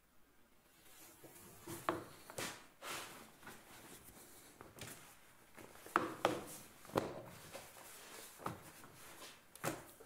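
A cotton T-shirt being handled and slid off a heat press platen: irregular rustling and brushing of fabric, starting about two seconds in and coming in several separate strokes.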